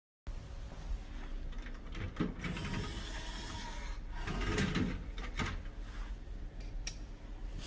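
Scattered clicks, knocks and rattling from handling a shop's cash register and its open coin drawer.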